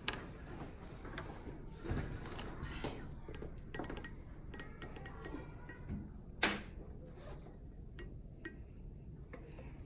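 Light clinks and taps of a paintbrush against a glazed ceramic paint palette as colours are mixed in its wells, with one louder clink about six and a half seconds in. Faint voices in the room behind.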